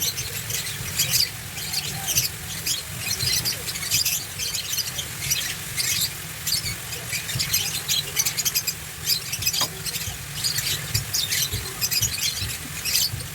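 Food sizzling and crackling in hot oil in a pan, a dense irregular crackle, with a steady low hum underneath.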